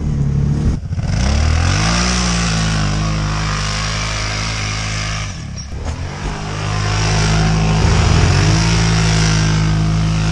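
Kawasaki Brute Force ATV engine revving and running under load. Its pitch climbs about a second in, holds steady, drops briefly past the middle and climbs again near the end, over a steady hiss.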